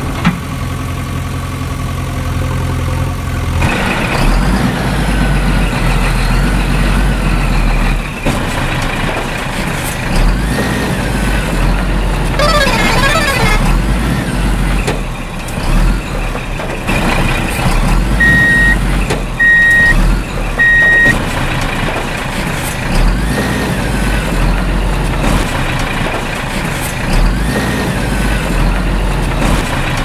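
Dubbed heavy truck sound effect: a diesel truck engine running steadily, with a short hiss about halfway through and then three short reversing beeps.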